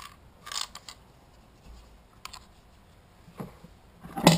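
Plastic starter housing of a Stihl 026 chainsaw being handled and offered up to the saw: a few short clicks and knocks of plastic parts, the loudest one a sharp clack near the end.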